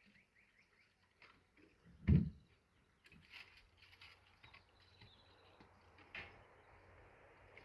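A single dull thump about two seconds in, with faint scattered clicks and rustling around it.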